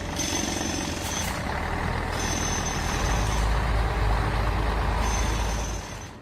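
Heavy machinery engine running with a steady rumble and a noisy clatter. A thin high whine or beep comes and goes three times, each lasting about a second.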